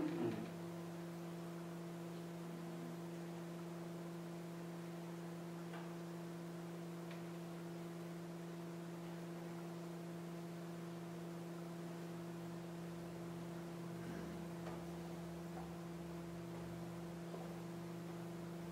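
Steady electrical hum of several pitches, with a brief soft sound right at the start and a few faint ticks.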